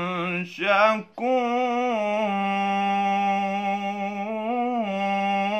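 A young man's solo voice chanting Quran recitation in the ornamented tajweed style, drawing out the closing words 'innahu ghafurun shakur' in long held notes that waver and turn in pitch. About a second in, a quick rising flourish is followed by a brief catch of breath.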